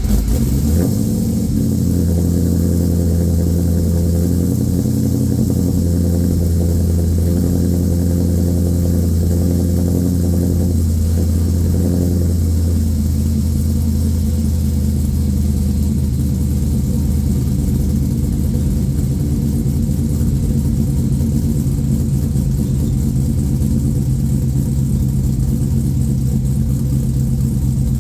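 LQ4 6.0-litre V8 with an aftermarket cam and 4-inch exhaust, idling loud just after start-up; its note changes about 12 seconds in, then holds steady.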